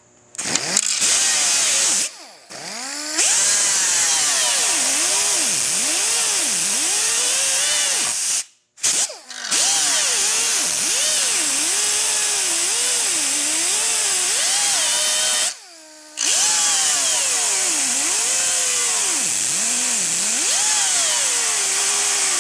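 Right-angle pneumatic cut-off tool with a small cutting wheel running under a loud air hiss as it cuts thick plastic. Its whine repeatedly dips and recovers in pitch as the wheel bites into the cut. It stops briefly about two, eight and fifteen seconds in and starts again each time.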